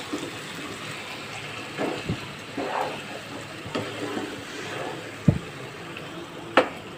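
Spiced meat pieces sizzling in hot oil in a non-stick pan while a plastic spatula stirs them, scraping and knocking against the pan; two sharp knocks of the spatula stand out about five and six and a half seconds in. The meat is frying, already browned on one side.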